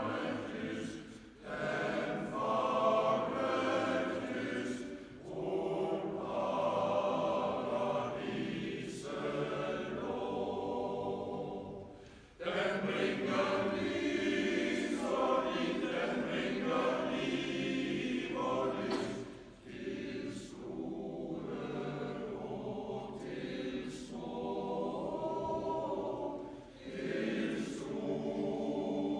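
Men's choir singing a slow piece in several phrases, with short breaks between them.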